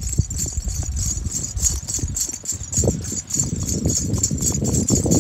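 Hoofbeats of a Kathiyawadi mare being ridden along a dirt farm track, a quick even run of strikes, with a light jingle from her decorated tack keeping time with them.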